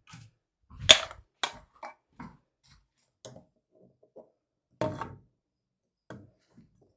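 Scattered sharp knocks and clicks of a level and metal lock hardware being handled and set against a wooden barn door while the plate is lined up. The loudest knock comes about a second in, and another strong one about five seconds in.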